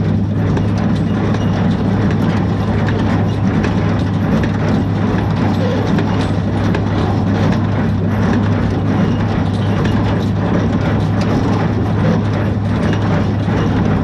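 Small square baler running behind a tractor: a steady low engine and driveline hum with a regular knocking from the baler's working parts as it bales hay.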